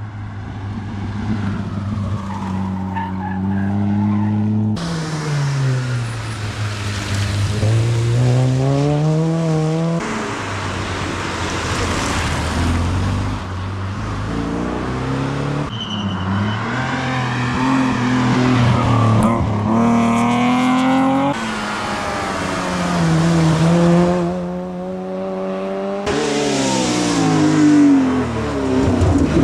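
Rally cars driven flat out on a stage, one after another. Their engines rev up and drop back through the gear changes.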